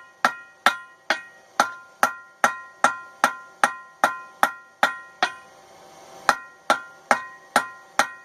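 Hand hammer striking a railroad spike on an anvil in a steady rhythm, about two and a half blows a second, each blow ringing out with a bright metallic tone. The blows stop for about a second about five seconds in, then carry on.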